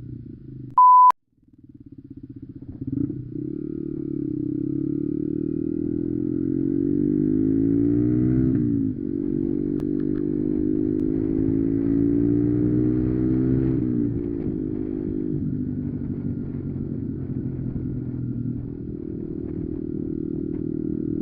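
Lexmoto Adrenaline 125cc motorcycle with a Lextek CP1 aftermarket exhaust accelerating, the engine pitch climbing and dropping with upshifts about nine and fourteen seconds in, then running on at a steady speed. A short, loud, steady beep cuts in about a second in.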